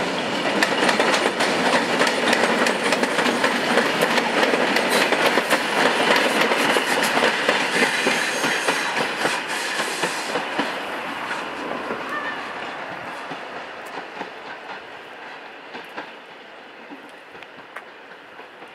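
An EN57 three-car electric multiple unit passes, its wheels clattering over the rail joints and points. It fades away over the second half of the passage.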